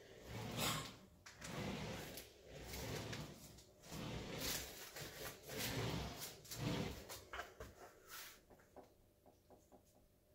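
Wooden rolling pin rolled back and forth over a jigsaw puzzle on cardboard, pressing it down onto spray adhesive: a series of rolling strokes about once a second. The strokes stop about seven seconds in, leaving a few faint taps.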